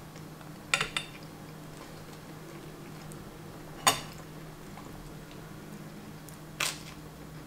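Metal cutlery and plate clinking against a ceramic dinner plate: a handful of separate sharp clinks, two close together under a second in, the loudest about four seconds in, and one more near the end.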